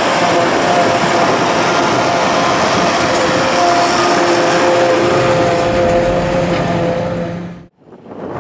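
Massey Ferguson 6150 tractor working hard under load, driving a JF FCT 850 trailed forage harvester whose chopper and blower run steadily, throwing cut grass through the spout into the trailer. The sound cuts off sharply near the end.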